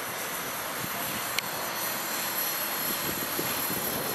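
500-size radio-controlled helicopter in flight, giving a steady buzzing drone with thin, high, steady tones over it. A single sharp click about a second and a half in.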